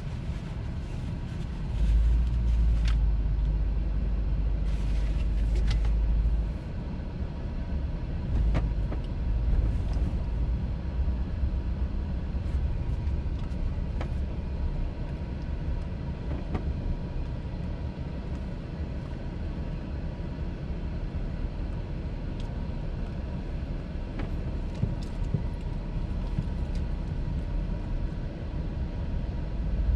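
A car driving, with a steady low rumble of engine and road noise. It grows louder for about four seconds, starting about two seconds in, then settles.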